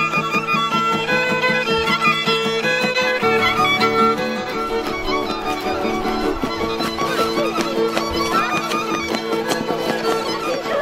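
Traditional Romanian folk dance tune played on a fiddle over strummed guitar chords, the fiddle carrying the melody above a steady, evenly beaten accompaniment that shifts about three seconds in.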